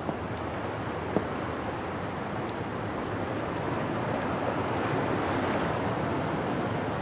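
Sea waves washing against the shore, a steady rushing that slowly swells, with one sharp click about a second in.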